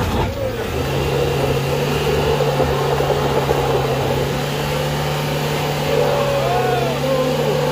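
Toyota HiAce minibus engine held at steady high revs while a drive wheel spins in place on the slippery mud, the tyre scrubbing and smoking without getting traction. A sharp click comes right at the start.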